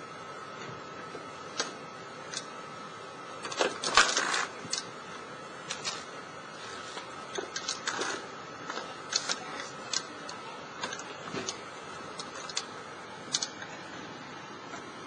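Four-legged robot's feet knocking on loose cinder blocks as it climbs over a pile of them: irregular clacks and clunks, a cluster of the loudest about four seconds in, over a steady faint high hum.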